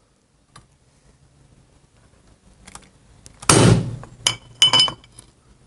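A rawhide mallet strikes a socket, driving a steel-shielded cam seal into a Harley Evolution cam cover: about four blows in the second half, the later ones with a short metallic ring. Mike took that ring as the sign the seal had gone home.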